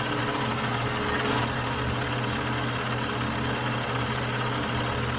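Metal lathe running steadily with a constant low hum, turning a steel axle shaft.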